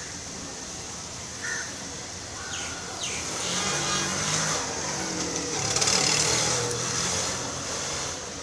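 A motor vehicle passing on the street. Its engine and tyre noise builds to a peak about six seconds in, then fades.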